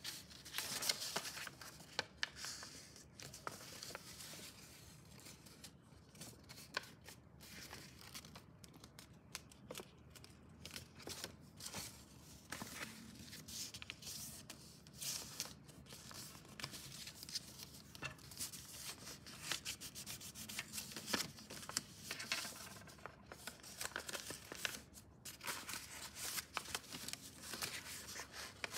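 A sheet of paper being folded and creased by hand: irregular rustling, rubbing and crinkling, with small clicks as folds are pressed flat.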